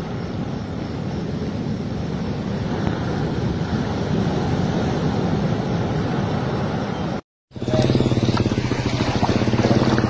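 Steady low roar of storm wind and surf. After a cut about seven seconds in, an engine runs with a steady hum and a fast pulsing beat.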